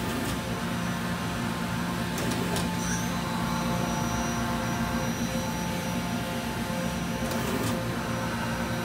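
Steady hum of a 2006 Kitamura Mycenter 4XiF CNC vertical machining center running under power, made of several fixed tones, with faint clicks about two seconds in and again near the end.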